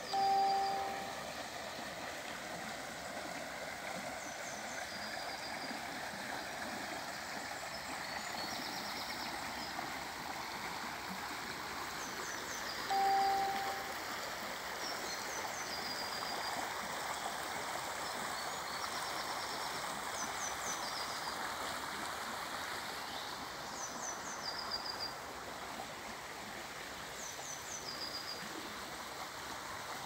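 Shallow river flowing over stones, a steady rushing of water, with a small bird repeating short high chirps every few seconds. A short steady tone sounds twice, at the very start and about thirteen seconds in.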